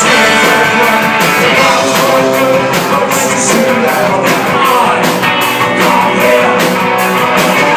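Live punk rock band playing loud and steady, with guitars and a regular drum beat, in an instrumental passage with no lead vocal.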